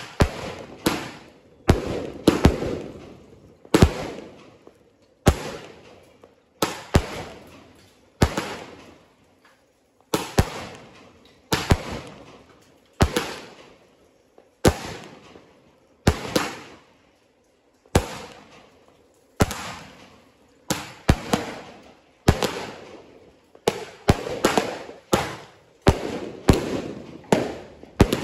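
Aerial fireworks going off overhead: a steady run of sharp bangs about one a second, each dying away quickly. The bangs come faster near the end.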